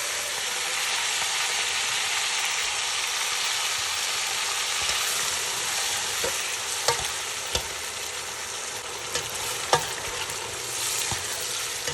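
Marinated onions sizzling in hot oil in a preheated pot: a steady frying hiss that eases a little after the first few seconds. A few sharp clicks come in the second half.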